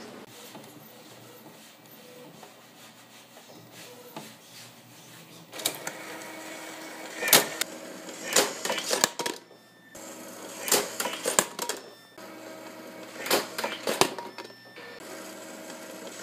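R-Quest CD/DVD duplicator-printer at work: a steady machine hum, then from about five seconds in, repeated bursts of sharp mechanical clicks and clatter from its disc-handling mechanism.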